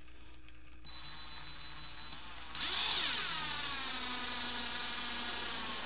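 A 19.2-volt cordless drill drives a screw through a mounting bracket. The motor starts whirring about a second in, eases off briefly, then runs louder with its pitch sinking as the screw bites, and stops at the end.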